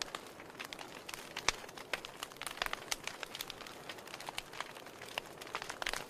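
Wood fire of burning logs crackling, with irregular sharp pops and snaps over a soft hiss; one louder pop comes about a second and a half in.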